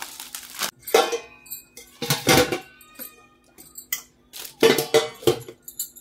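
Stainless steel kitchen containers and lids clanking and clinking as they are handled, with several separate knocks that ring briefly.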